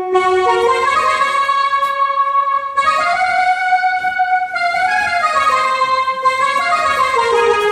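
Casio CT-X700 / CT-X870IN electronic keyboard playing a slow single-note melody on one of its General MIDI tones. Each note is held about a second, stepping up in pitch and then back down.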